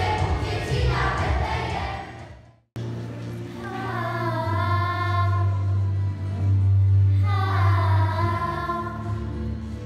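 Group of schoolchildren singing a Polish Christmas carol (kolęda) in unison, over steady low accompaniment notes. The singing fades out and breaks off briefly about three seconds in, then starts again.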